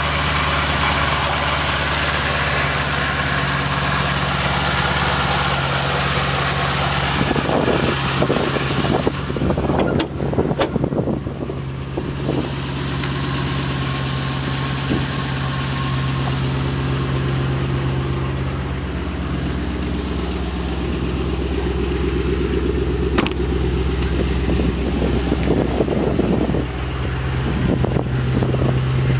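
2009 Shelby GT500's supercharged 5.4-litre V8, fitted with a ported VMP Gen1 TVS supercharger, idling steadily. Heard close to the open engine bay for the first nine seconds or so, with a strong hiss and whir from the intake, then from in front of the car, where the low idle note is left. A few sharp clicks sound about ten seconds in.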